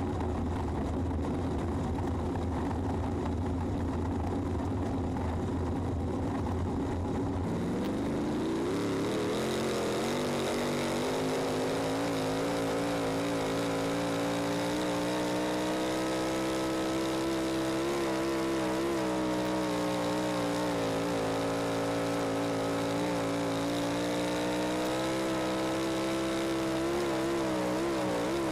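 Onboard sound of a 358 sprint car's V8 engine: a low idling rumble, then about eight seconds in the engine note rises as the car pulls away and holds at a steady, slightly wavering pitch with small dips as the throttle eases.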